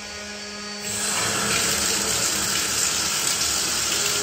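Water rushing steadily out of a bare tub-spout pipe stub after a Delta single-handle shower valve is turned on; a faint steady hum comes first, and the full rush of water starts about a second in.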